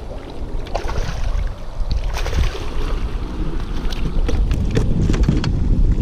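Wind buffeting the microphone in a deep rumble that builds toward the end, with water lapping at a kayak and scattered small clicks and knocks.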